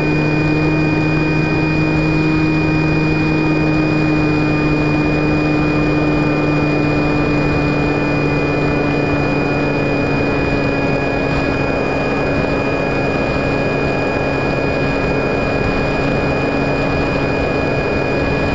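Motor and propeller of an FPV Raptor model plane, heard from its onboard camera in flight: a steady drone with a thin high whine that sinks slightly in pitch over the stretch, over a rush of wind noise.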